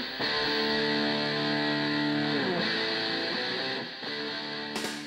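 Guitar music with sustained notes; the notes slide down in pitch about halfway through, and the music fades toward the end.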